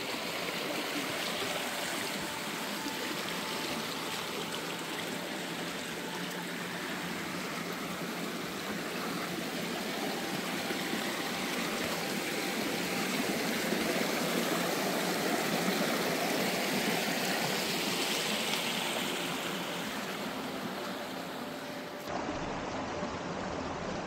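Creek water flowing, a steady rushing that swells a little midway; the sound changes abruptly near the end.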